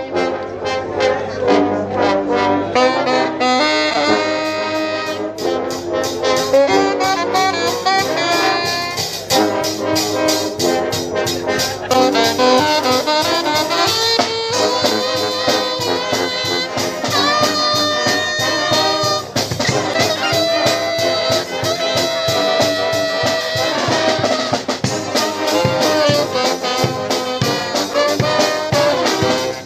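Live brass band playing an upbeat tune: trombones, trumpets and saxophones over drums keeping a steady beat.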